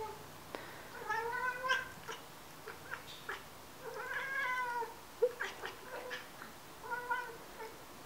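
Domestic cats chirping at birds through a glass door: drawn-out, bending chirps about one, four and seven seconds in, with short chirps between. This is the excited chirping of cats watching prey they cannot reach.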